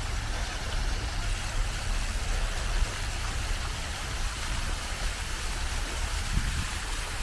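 Steady street traffic noise, an even rumble and hiss with no single event standing out.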